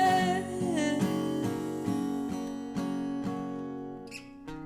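Acoustic guitar strummed at about two strokes a second, slowly getting quieter. A woman's last held sung note slides down and ends about a second in.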